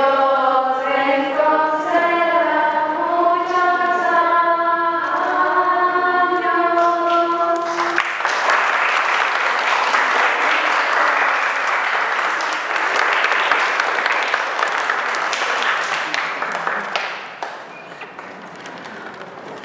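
A group of voices singing together for about eight seconds, then breaking off into applause that goes on for about nine seconds before dying away.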